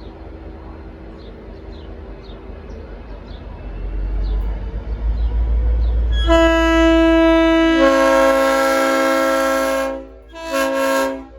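Train rumble building as the V/Line N class diesel locomotive draws near, then its Leslie RS5T five-chime air horn sounds a long, loud chord. More, lower notes join about a second and a half after it starts. The horn cuts off near the end and gives a second, short blast.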